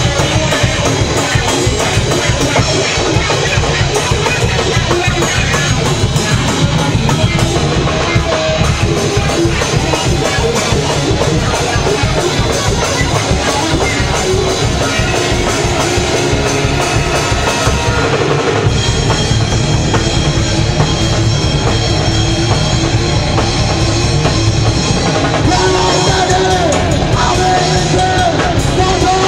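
Live rock band playing loud and without a break: electric guitar through amplifiers over a full drum kit with cymbal crashes.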